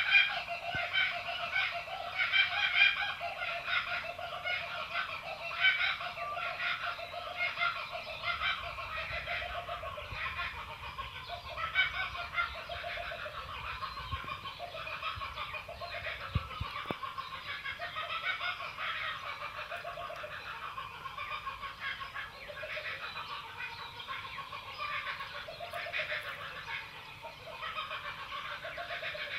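A dense chorus of short animal calls from many animals at once, overlapping and repeating several times a second, loudest in the first few seconds.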